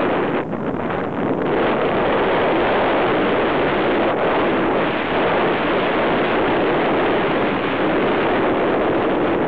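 Steady, loud wind rushing over the microphone of a pole-mounted camera in paraglider flight, briefly easing about half a second and a second in.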